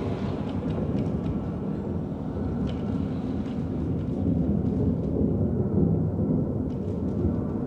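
A low, steady rumble with a few faint scattered ticks.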